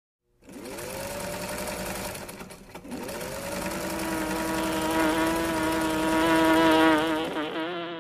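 Electric sewing machine running: its motor whirs up to speed about half a second in, eases off, then whirs up again and runs steady, getting louder, before the pitch wavers near the end.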